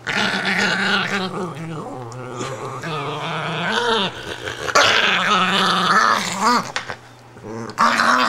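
Italian greyhound growling and grumbling in a long drawn-out protest, her voice wavering and swooping up into whines several times, dropping off briefly near the end before starting again. The sound of a dog upset at being taken out of her bed.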